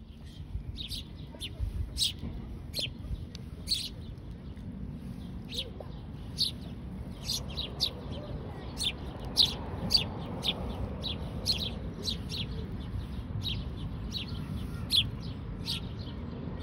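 House sparrows chirping: a flock's short, high chirps, about two a second and irregular, the begging calls of fledglings being fed among them, over a low rumble of background noise.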